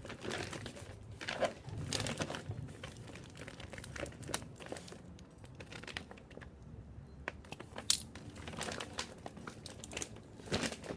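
Brown-paper and plastic parcel wrapping with packing tape crinkling and tearing as it is cut and pulled open, in irregular crackles and rustles, with a sharp crackle about eight seconds in.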